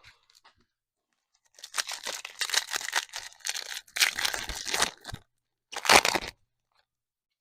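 Crinkly plastic trading-card pack wrapper being torn and crumpled: a few seconds of dense crackling and rustling, then one short loud crackle about six seconds in.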